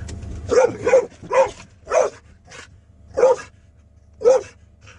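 Dog barking, about seven short barks: four in quick succession, then three more spaced about a second apart.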